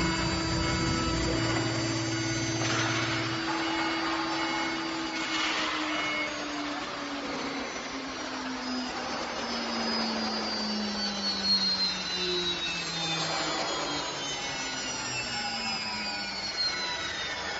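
CNC router spindle milling a carbon steel plate: a steady machining noise with a motor whine whose pitch slowly falls over several seconds. A low hum drops out a few seconds in.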